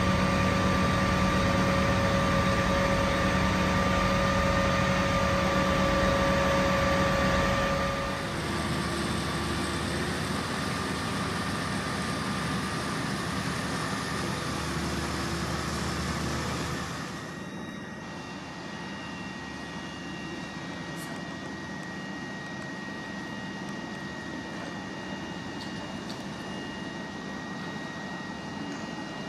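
Fire engines running at idle, a steady engine hum with a droning tone. The sound drops at about eight seconds in and again at about seventeen, leaving quieter street noise with a faint, steady high whine.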